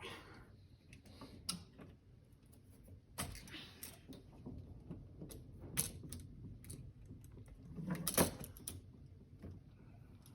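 Scattered light clicks, scrapes and knocks of a screwdriver and an old electrical outlet being worked loose and handled at a wall box. The sharpest knocks come about three seconds in and again around eight seconds.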